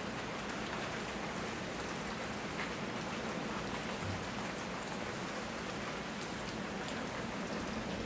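Steady tropical rain falling and pattering on surfaces, an even hiss with faint scattered drop ticks.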